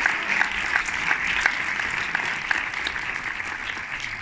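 Audience applause: many people clapping together, gradually dying away near the end.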